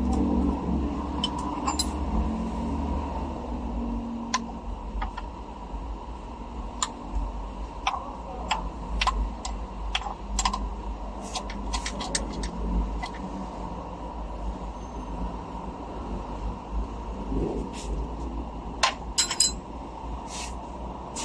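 Metal hand tools clinking and tapping on engine parts: a scattering of sharp clicks, some in quick clusters, with a few louder clinks near the end, over a steady low rumble.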